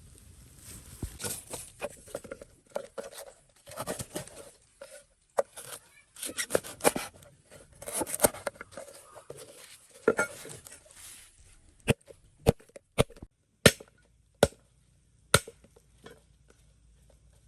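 Irregular rustling and scraping handling noises, then six sharp knocks at uneven intervals, like chopping strokes.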